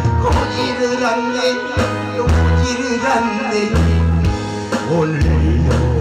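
A singer performing live into a microphone over a loud amplified backing track with a pulsing bass line.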